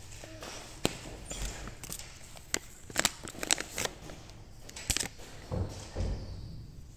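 Packaging of a blind-bag toy being handled and opened: the packet and a small wrapper crinkle and rustle in the hands, with scattered sharp crackles and a few dull bumps near the end.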